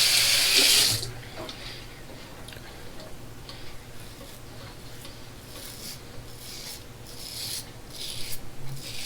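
A double-edge safety razor scraping through lathered stubble in short strokes on an upstroke (against-the-grain) pass, roughly one stroke a second and closer together near the end. The first second holds a louder hiss.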